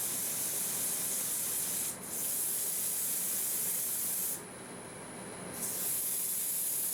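Sandpaper held against the bottom of an Osage orange birdhouse spinning on a wood lathe: a steady hiss that dips briefly about two seconds in and drops away for about a second near the middle, as the paper comes off the wood.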